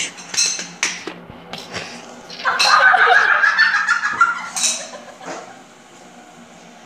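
A burst of giggling laughter about two and a half seconds in, lasting under two seconds, with a few light clicks and knocks before it.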